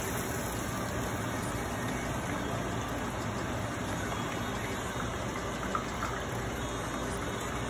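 Hot oil sizzling and bubbling steadily in a small saucepan as bacon-wrapped chicken bites deep-fry, with a couple of faint clicks about six seconds in.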